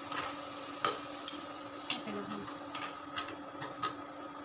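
A metal utensil clinks and scrapes against a stone-coated pan as spaghetti is tossed and mixed into tomato sauce. There are about seven light knocks at uneven intervals, the sharpest a little under a second in. Under them runs a steady hum from the induction cooktop.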